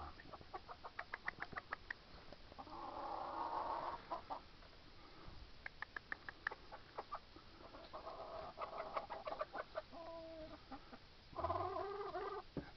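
Chickens clucking: quick runs of short clucks, with three drawn-out calls of about a second or more in between.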